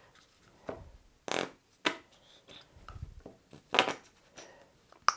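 A handful of short scraping and tapping sounds from a paintbrush being loaded with acrylic paint on a palette, the loudest nearly four seconds in.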